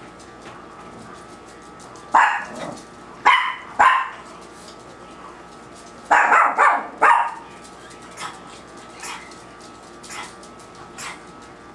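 A small dog barking in two short runs of barks, about two seconds in and about six seconds in. Faint crunching of a baby carrot being chewed runs underneath.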